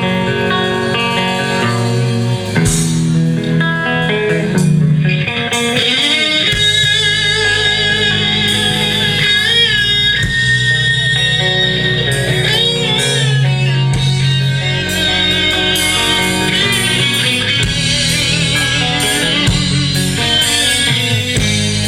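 Live rock band playing an instrumental intro led by guitar. The bass and drums fill in about six seconds in, and wavering lead guitar lines ride over the chords after that.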